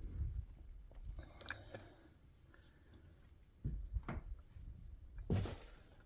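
Soft footsteps on an old floor with faint crunching and crackling underfoot, and a few dull thuds about three and a half to four seconds in.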